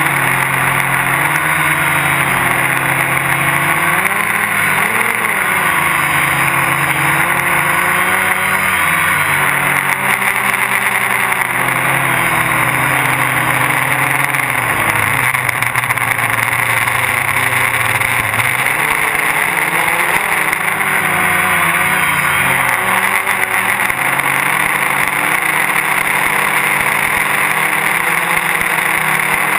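Gaui 330X quadcopter's electric motors and propellers whirring, heard close from the camera mounted on the craft. The whine is continuous and its pitch wavers up and down as the throttle changes in flight.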